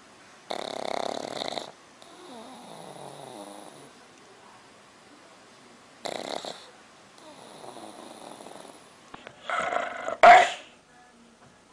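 Black pug snoring: two loud rasping breaths in about five seconds apart, each followed by a softer breath out, the noisy breathing typical of a short flat-faced breed. Near the end a different dog, a pit bull type, gives two short, loud vocal sounds.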